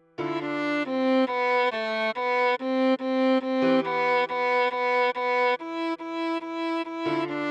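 Viola playing a melody of short, separate notes, two to three a second, over held lower accompanying notes.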